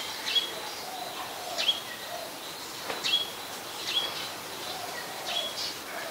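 Small birds calling: about five short, sharp calls a second or so apart, each a quick downward sweep ending on a brief high note, over softer, lower chirping.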